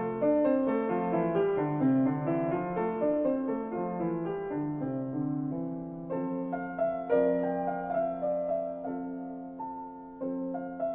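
Solo piano music: a slow melody over held chords, each note struck and fading.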